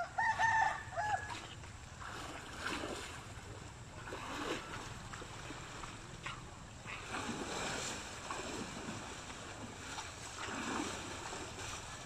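A rooster crows once, briefly, about the first second in. Then river water splashes and sloshes in irregular swells as an elephant swims and wades through it.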